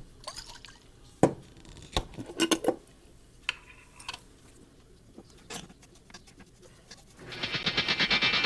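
Clinks and knocks of a container of shellac and a brush being handled. About seven seconds in comes a louder quick rattle of fast, even taps lasting over a second.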